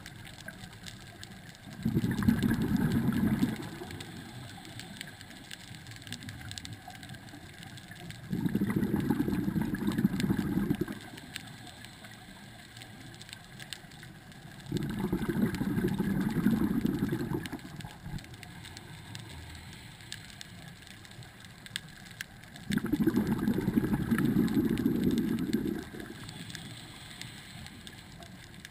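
A scuba diver breathing through a regulator underwater: four bursts of exhaled bubbles, each lasting two to three seconds and coming about every six to seven seconds, with quieter stretches between breaths.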